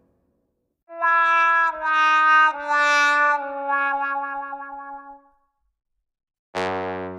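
Sad trombone comedy sound effect: four brass notes stepping down in pitch, the last held longest and fading away. Near the end another effect starts suddenly with a low buzzy tone.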